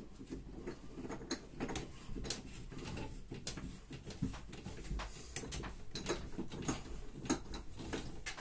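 Hands handling thin plastic reverse-osmosis tubing and screwing a plastic pipe fitting back on: irregular small clicks, ticks and rubbing.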